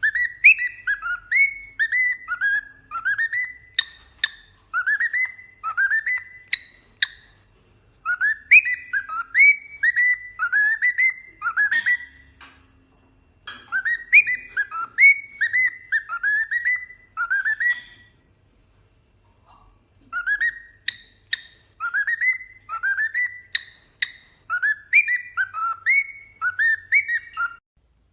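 A pet bird whistling: runs of short, clear notes that each slide downward, about two a second, in three bouts with short pauses between them. A few sharp clicks come among the notes.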